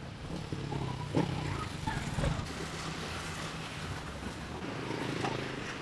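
Road traffic: a steady low vehicle engine hum, with a few light knocks.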